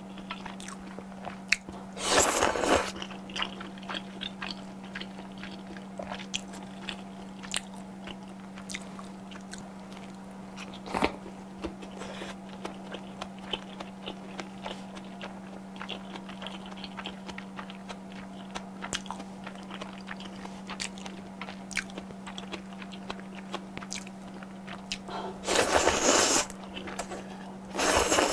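Close-miked chewing with many small wet mouth clicks, and loud slurps of udon noodles, one about two seconds in and two near the end. A steady low hum runs underneath.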